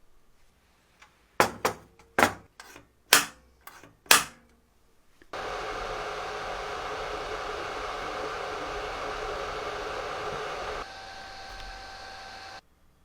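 About six sharp knocks in quick succession, then a small fan-driven electric appliance, such as a blower, running steadily. Near the end it drops to a lower, quieter setting, then cuts off suddenly.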